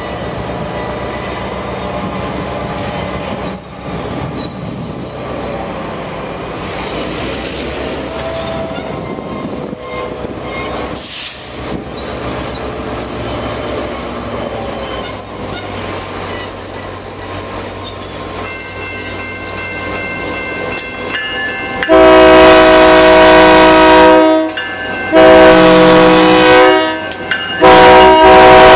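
Diesel locomotive NWP 2009 running as it rolls slowly by, then sounding its multi-note air horn in three loud blasts, the first two about two seconds each with short gaps, the third starting just before the end.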